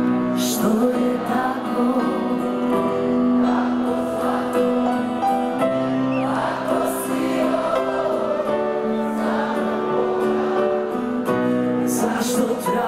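A pop-rock band playing live, with sung vocals and many voices singing together, heard from within a large audience.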